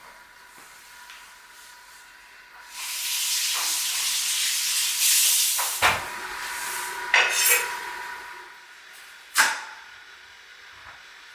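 A hiss lasting about three seconds, then sharp clatters and knocks of kitchenware: three of them, about two seconds apart.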